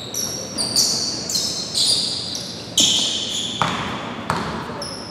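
Basketball shoes squeaking on a gym's hardwood floor in a string of short, high squeaks, then a basketball bouncing twice on the court near the end, echoing in the gym.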